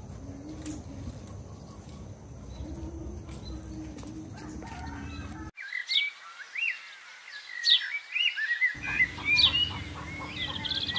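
Small birds chirping and twittering in quick, varied short calls, starting abruptly about halfway through; before that, a low steady outdoor rumble.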